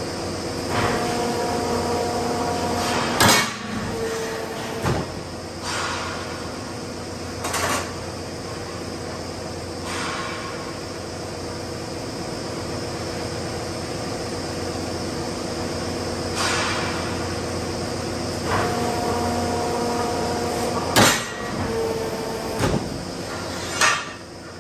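Metalworking machinery running with a steady hum in a steel workshop, broken by sharp metal bangs and clanks. The loudest come about three seconds in and again in a cluster of three near the end, with a few weaker knocks between. Short whining tones are held for a couple of seconds before each cluster of bangs.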